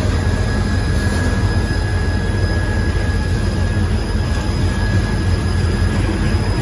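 Loaded freight tank cars rolling past close by: a loud, steady rumble of steel wheels on the rails, with a faint steady high tone running over it.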